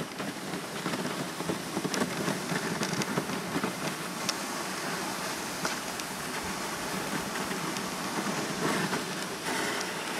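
Dog sled runners sliding over snow: a steady hiss and crackle, broken by occasional sharp clicks.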